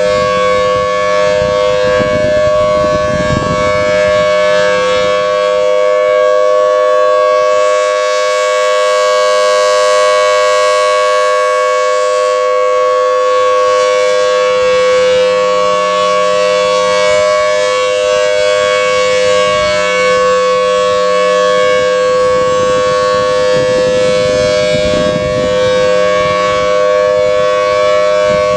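Federal Signal Thunderbolt 1000T outdoor warning siren sounding its steady alert, a sustained chord of close tones around 500–600 Hz, as its horn rotates. The sound grows brighter and fuller about a third of the way in as the horn swings toward the listener, then mellows as it turns away.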